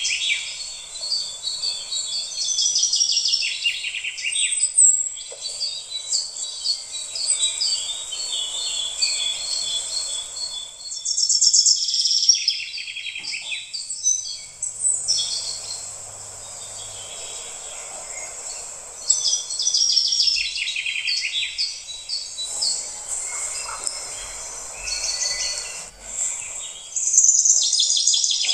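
Songbirds chirping, in repeated spells of rapid high trills that fall in pitch, over a soft steady hiss.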